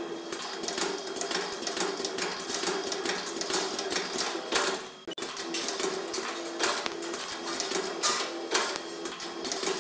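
CNC 2D wire bending machine feeding and bending steel wire. A hum comes and goes while a rapid clatter of clicks runs throughout, with a few louder sharp clicks. The sound drops out briefly about five seconds in.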